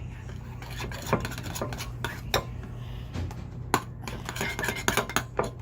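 A utensil stirring and scraping slime in a mixing bowl, with several sharp clinks and knocks against the bowl.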